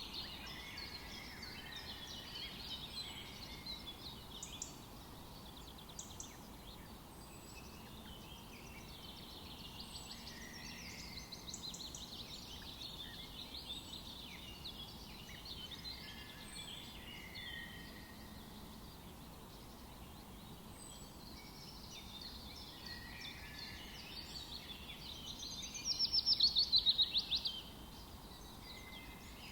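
Several songbirds chirping and calling over a steady background hiss. Near the end a louder, fast run of rapidly repeated notes stands out for about a second and a half.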